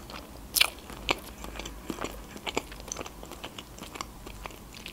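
A person chewing food close to the microphone: irregular wet mouth clicks and smacks, two of them louder about half a second and a second in.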